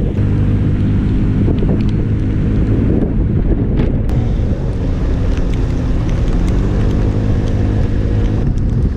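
Motorbike engine running as it is ridden, its pitch shifting a few seconds in, with strong wind buffeting the microphone.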